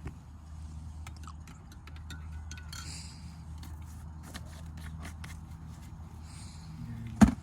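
Small clicks and crinkles of coffee things being handled, over a steady low hum, with one sharp knock near the end.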